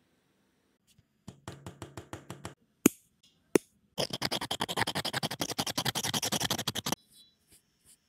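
A nail file rasps back and forth in quick strokes against a fingernail tip, filing away the overhanging excess of a cured gel nail wrap. A short, lighter run of strokes about a second in is followed by two sharp clicks, then a louder, faster run of strokes for about three seconds.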